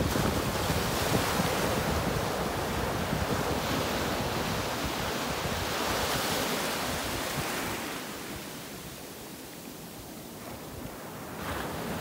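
Ocean surf washing up a beach: a steady rush of foam that eases off about two-thirds of the way through, then swells again as a new wave breaks near the end.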